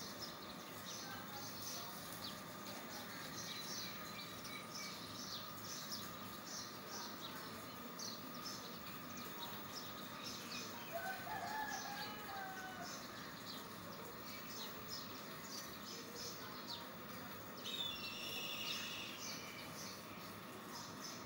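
Small birds chirping over and over in short high notes, with a faint steady high tone underneath. One longer, lower call rises and falls about halfway through, and a louder burst of calling comes near the end.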